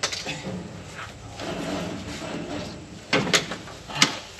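Hand tools working on metal machinery: a few sharp metallic clicks, three of them close together near the end, over faint voices.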